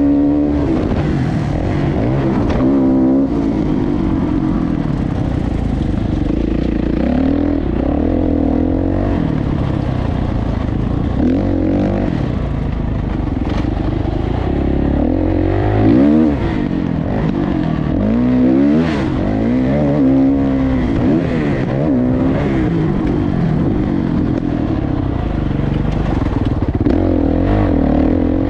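Motocross dirt bike engines revving hard and backing off, the pitch rising and falling over and over as the throttle opens and closes.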